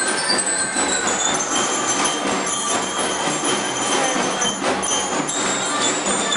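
A drum and lyre band playing: drums beating steadily under the ringing tones of bell lyres.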